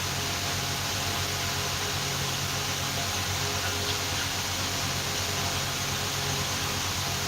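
Steady hiss with a low, even hum underneath, unchanging throughout, like a fan or background noise in the recording.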